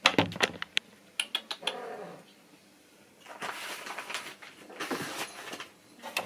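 A domestic cat making a short call that falls in pitch, about two seconds in. Sharp clicks come in the first second, and two spells of soft rustling follow later.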